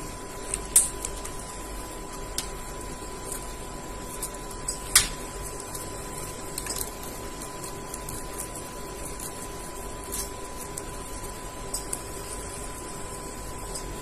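Irregular sharp clicks and ticks of a blue Indian ringneck parakeet's beak working a hanging toy with metal links, the loudest about a second in and about five seconds in. A steady faint hum runs underneath.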